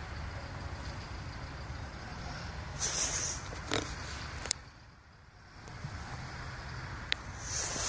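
Wind buffeting the microphone in a low, uneven rumble that eases off briefly about five seconds in, with two short hissy gusts.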